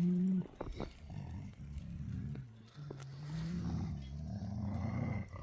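Low, drawn-out animal calls: the tail of one at the start and a longer one in the second half.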